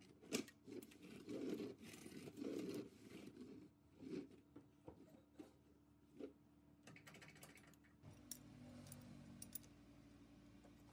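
Faint clicks and short scrapes of small metal parts being handled and fitted: a knurled knob turned on a threaded rod at the machine's clamp. The scrapes are loudest in the first few seconds; later only a few light clicks remain.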